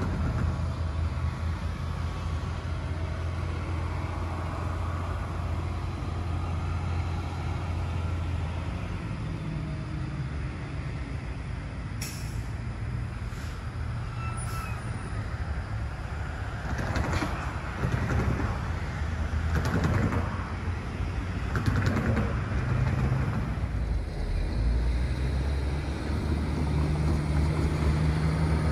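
Steady low engine drone of motor vehicles, with several vehicles passing and swelling up and fading in the middle of the stretch.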